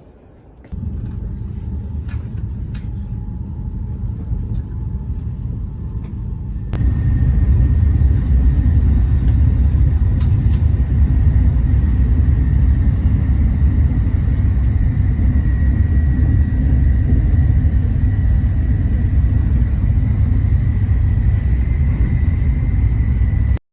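A steady low rumble that grows louder about seven seconds in, then cuts off suddenly.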